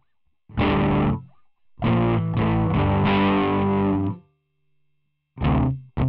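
Electric guitar played through a Boss ME-20 multi-effects pedal with its overdrive/distortion engaged: one short chord, then about two seconds of strummed chords that stop abruptly, and another chord struck near the end.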